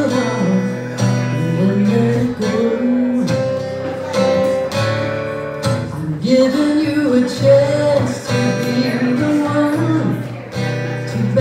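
A woman singing with long held notes, accompanying herself on a strummed acoustic guitar.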